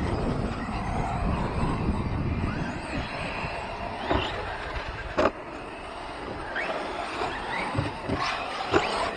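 Radio-controlled monster trucks running on a dirt track, with short rising motor whines as they accelerate over a steady rushing noise. A sharp knock comes about five seconds in, and further knocks follow near the end.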